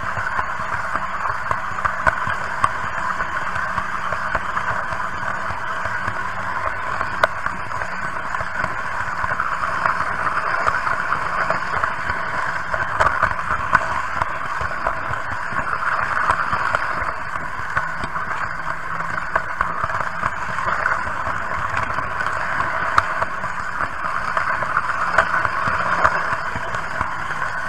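Märklin H0 model train running steadily along metal track, a continuous rolling whir sprinkled with many small clicks from wheels over the rails.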